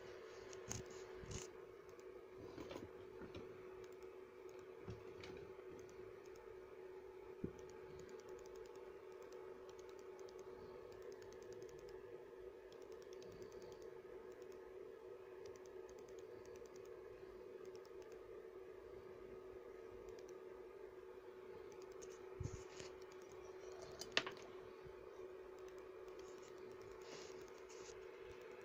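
Faint clicks and taps from a small two-tube Nixie display board being handled on a silicone mat and having a USB cable plugged in. About half a dozen scattered clicks, the sharpest about seven seconds in and near the end, over a steady low hum.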